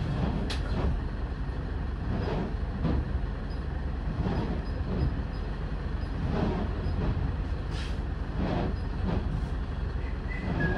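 Optare Solo SR single-deck bus on the move, heard from inside: a steady engine and road drone with irregular rattles and knocks from the body and fittings.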